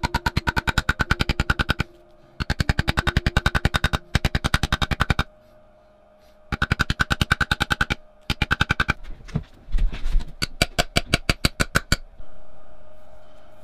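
Hand wire brush scrubbing the steel quill of a pillar drill press in fast back-and-forth strokes, about ten scrapes a second, in bursts of a second or two with short pauses. A few heavier knocks follow near the end.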